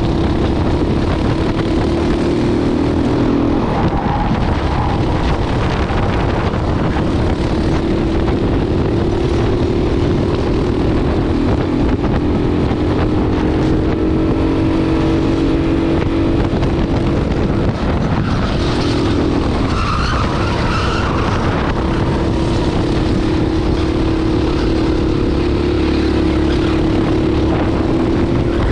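Racing kart engine heard onboard at high revs, close to the microphone. Its pitch drops twice and climbs back as the kart slows and accelerates again.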